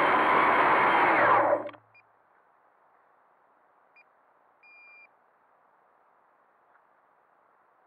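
Quadcopter's electric motors and propellers running, then winding down and stopping about a second and a half in, the motors shut off with the craft on the ground. A few faint short electronic beeps follow, the last one longer.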